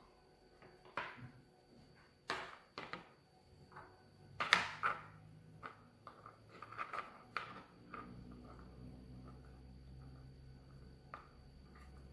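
Light knocks and clatters of a plastic plate and small objects being set down on a wooden tabletop, the loudest about four and a half seconds in, with softer clicks of handling between them. A low steady hum starts about eight seconds in.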